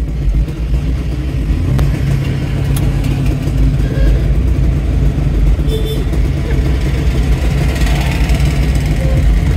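Several Piaggio Ape three-wheelers with small two-stroke engines driving past one after another, their engines running steadily.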